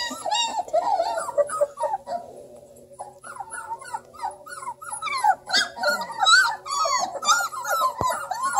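Three-week-old Redbone Coonhound puppies whimpering and squeaking, many short high cries tumbling over one another. The crying dies down briefly about two seconds in, then picks up again.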